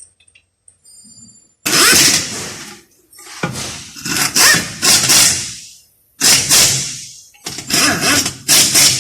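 Power wrench running in four bursts of one to two and a half seconds each, driving in 15 mm bolts on a 6L80 automatic transmission.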